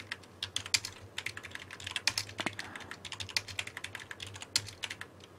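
Typing on a computer keyboard: quick, irregular key clicks, some struck harder than others, thinning out near the end.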